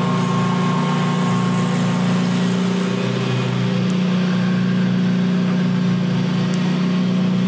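Steady low mechanical hum of a running machine: one even drone with overtones that does not change.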